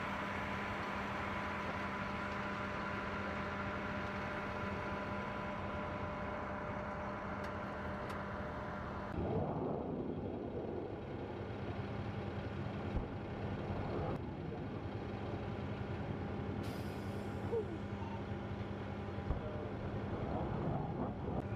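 Jet engines of a large military transport aircraft running steadily with a whine. About nine seconds in, HIMARS rocket motors launching are heard as rushing surges, three in all, over a steady engine drone.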